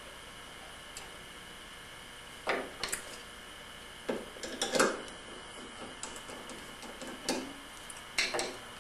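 Scattered light clicks and knocks, about half a dozen spread unevenly, over a faint steady room hum: equipment being handled while the test is reset at the computer.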